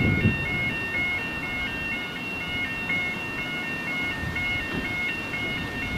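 Electronic warning alarm sounding continuously, a tone switching back and forth between two pitches about three times a second, over a low rumble.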